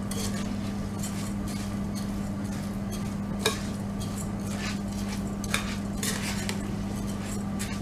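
Soaked rice, cooked rice and grated coconut being stirred together in a bowl, with a few scattered scrapes and clinks of the utensil against the bowl over a steady low hum.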